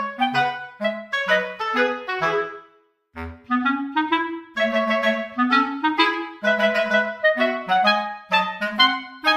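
Light background music: a woodwind melody of short, bouncy notes at a steady tempo, breaking off briefly about three seconds in and then starting again.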